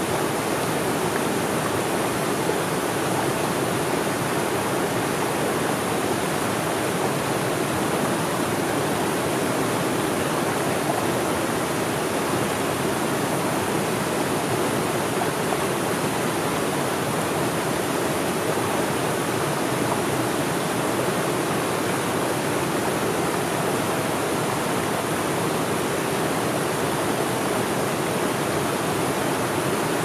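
Whitewater rushing and splashing over rocks in a small waterfall, a steady, unbroken rush of water.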